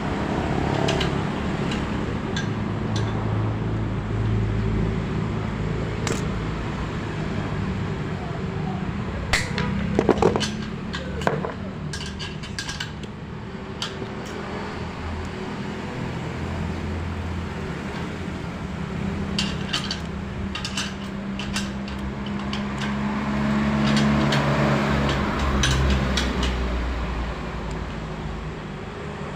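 Small clicks and light clatter of plastic and metal parts as an opened Vertex A3 mountain-bike trigger shifter is handled, with a cluster of sharper clicks about ten seconds in, over a steady low hum.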